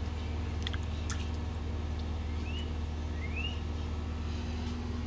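Steady low hum of a running outdoor air-conditioner condenser unit. A bird gives two short chirps that rise and fall about halfway through, and there are a couple of light clicks near the start.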